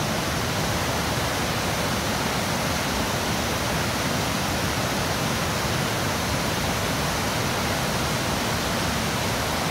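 Waterfall, whitewater rushing down over rock ledges: a steady, even rush of water.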